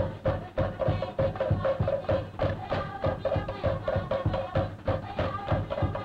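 Traditional Cook Islands drum ensemble playing a fast, steady rhythm for a drum dance: rapid, even strokes on wooden slit drums over deeper drum beats.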